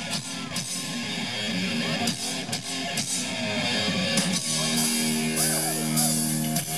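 Live hard-rock band playing an instrumental passage: distorted electric guitar lead with bent notes over bass and a drum kit. A low chord is held from about two-thirds of the way through.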